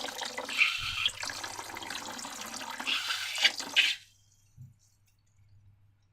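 Wet, liquid sloshing and squelching that cuts off suddenly about four seconds in.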